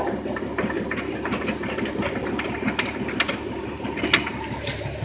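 Vehicle engine idling steadily, with scattered light clicks and rustles on top.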